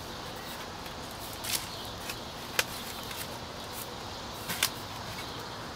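Shovel digging into soil: a few separate sharp strikes and scrapes of the blade going into the dirt, the last two close together.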